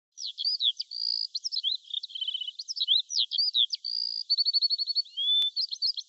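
Songbird singing a lively, varied song of clear whistles, up- and down-slurred notes and quick rapid trills, one phrase after another.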